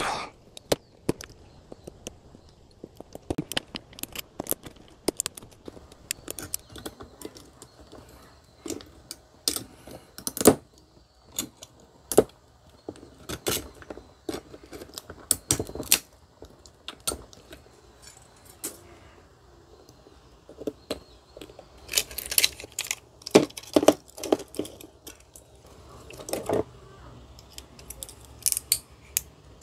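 Scattered sharp metallic clicks, snaps and clinks as welded nickel strips are pried and torn off 18650 lithium-ion cells with pliers and loose cells knock together. There is a busier run of clinks about three-quarters of the way in.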